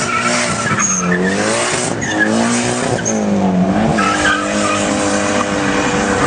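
A vehicle engine revved hard during a burnout over the hiss and squeal of spinning tyres. Its pitch rises and falls a few times, then is held steady and high for the last couple of seconds.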